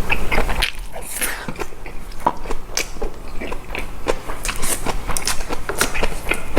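Close-miked chewing of a mouthful of boiled pork, rice and fresh napa cabbage kimchi: a quick, irregular run of wet smacks and crisp crunching clicks, loudest in the first second.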